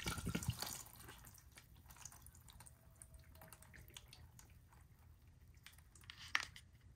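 Old diesel fuel pouring from an upended fuel filter canister into a plastic drain pan. It splashes for about a second, then fades to faint dripping, with a single short knock near the end.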